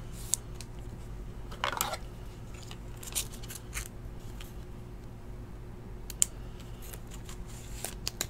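Faint scattered clicks and rustles of a trading card being handled and slid into a rigid plastic top loader, over a steady low hum.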